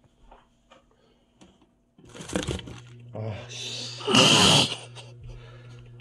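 Homemade cotton candy spinner driven by an electric fan motor, switched on about two seconds in: a steady motor hum under loud rattling and scraping as the plastic-wrapped cup of melted sugar spins inside the cardboard box and its wrap tears away, loudest about four seconds in.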